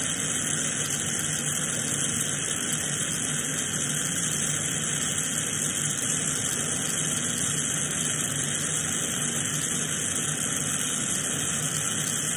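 Glassworking bench torch burning with a steady hiss, its flame unchanged throughout.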